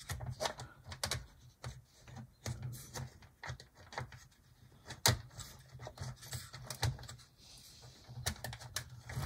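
HO-scale Mantua GP20 model diesel locomotive being run on the track by hand, its small electric motor humming low in stops and starts, with scattered light clicks and rattles from the wheels and handling, one sharper click about five seconds in. Its wheels have just been cleaned of track gunk, which has it running better.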